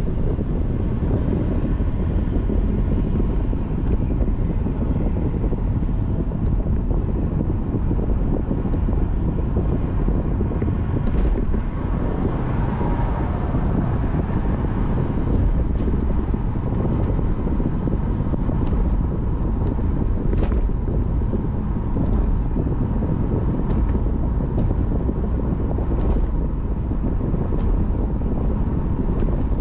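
Car driving at road speed: a steady low rumble of tyre and road noise, with wind buffeting the microphone.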